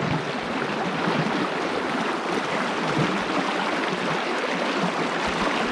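A mountain river flowing steadily over stones.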